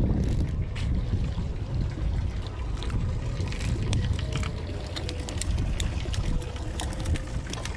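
Wind buffeting the microphone, with a scatter of sharp clicks and taps from a few seconds in.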